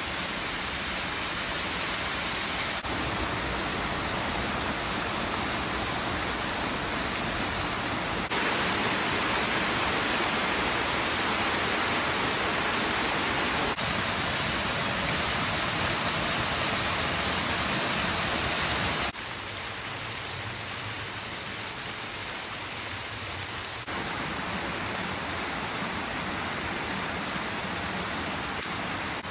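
Rushing water of a mountain stream, a steady hiss that shifts abruptly in loudness and tone several times, loudest in the middle stretch.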